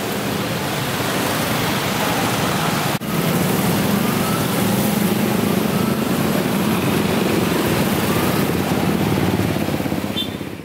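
Heavy road traffic: a steady stream of motorcycles and cars running past close by, their engines blending into a continuous drone. There is a brief break about three seconds in, and the sound fades out at the end.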